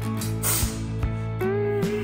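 Background music with guitar and a steady beat, with a short hiss about half a second in.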